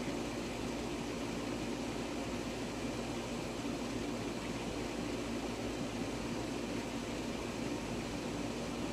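Steady low hum with an even hiss over it, unchanging throughout, with no splash or knock standing out.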